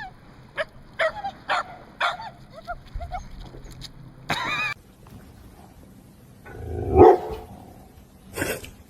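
Dog barking: a run of short barks in the first two seconds, a longer drawn-out cry about four seconds in, then a louder single bark around seven seconds.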